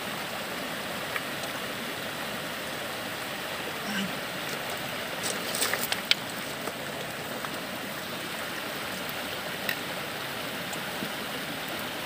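Steady rushing of river water, with a few brief sharp clicks about halfway through.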